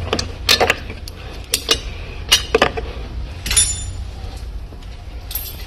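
Hand tools and metal parts clinking: about seven sharp metallic clinks, spaced unevenly, one near the middle with a brief ringing, over a steady low hum.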